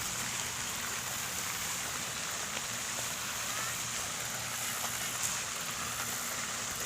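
Steady outdoor ambience: an even hiss with a faint, steady high-pitched band running through it and a few faint ticks.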